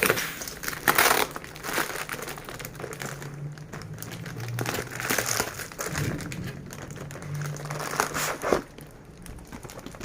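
Packaging crinkling and rustling in irregular bursts as it is handled by hand during unboxing, loudest about a second in and again near the end.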